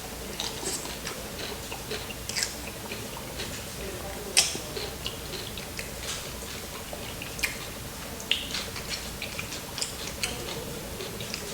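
Close-miked chewing with irregular wet mouth clicks and smacks, a sharper crunch about four seconds in.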